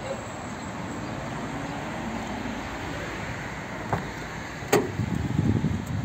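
Artificial V8 engine sound from a sound generator fitted to a Peugeot iOn electric car: a steady low hum, two sharp clicks about four and five seconds in, then a louder, uneven low burble from about five seconds in.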